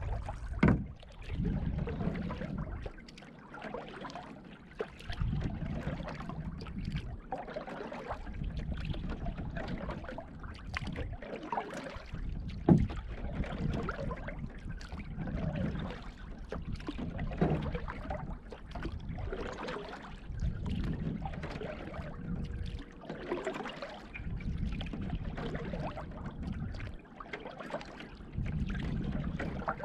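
Canoe being paddled: low swishing paddle strokes every two to three seconds, with water trickling off the blade and a few sharp knocks of the paddle against the canoe, the loudest near the middle.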